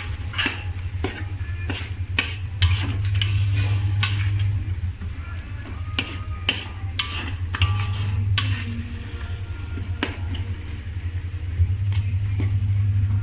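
A cooking utensil stirring chicken in a tomato and chili gravy in a pan, scraping and clicking against the pan many times, with the gravy sizzling and a steady low hum underneath.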